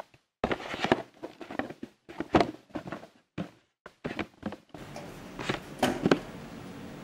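Unpacking and handling noises from a grill machine being taken out of its box: irregular knocks, thumps and rustling, in short stretches broken by abrupt silences.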